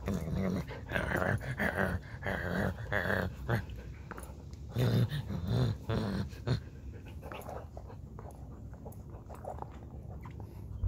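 Alaskan husky chewing and gnawing at a shredded toy, with many small crunching clicks and low growls, dying down after about six and a half seconds.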